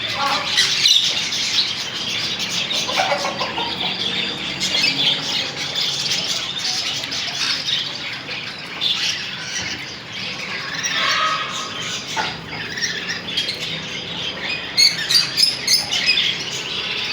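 Many caged parrots squawking and chirping at once in a busy, overlapping din, with a quick run of loud squawks near the end.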